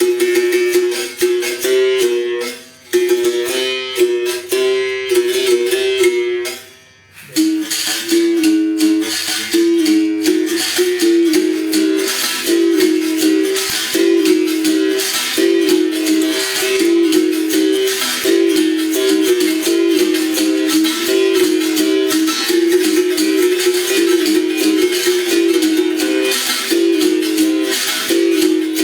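Bamboo berimbau played in a fast, steady rhythm, its struck string alternating between two close notes under the shake of the caxixi rattle. It pauses briefly about seven seconds in, then plays on.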